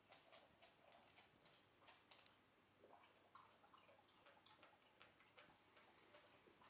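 Near silence, with faint, irregular small clicks and ticks scattered throughout.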